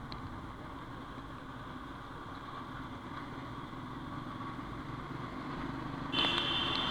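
Motorcycle running along the road, its engine and road noise steady and slowly getting louder. About six seconds in, a short high-pitched horn sounds.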